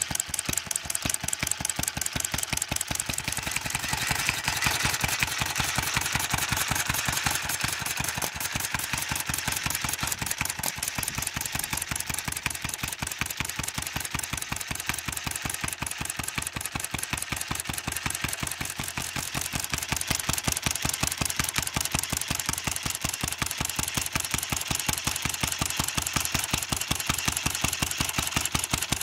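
Home-made overhead-valve flywheel engine, fitted with a muffler, running steadily with a fast, even beat of firing strokes.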